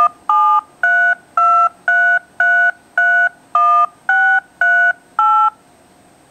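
Smartphone speaker playing eleven DTMF touch-tones, about two a second, dialing the number 1-732-333-1638 into the microphone of a landline handset. Each beep is a steady two-note tone.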